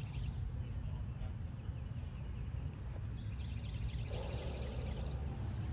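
Outdoor ambience: a steady low rumble, with faint bird chirping from about three seconds in.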